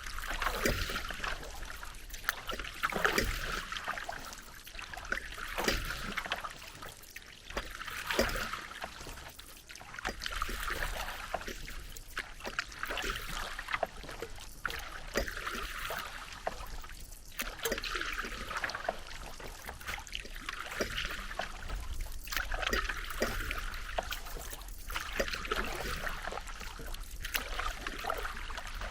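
Paddle strokes in lake water, each stroke bringing a swell of splashing and water trickling off the blade, repeating every few seconds.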